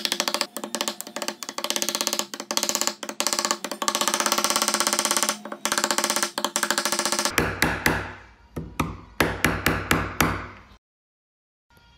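Rapid rattling of wood on wood with a steady ringing tone, like a thin walnut strip buzzing against the edge of a wooden box as it is flexed. About seven seconds in it breaks into a string of separate knocks, then stops abruptly.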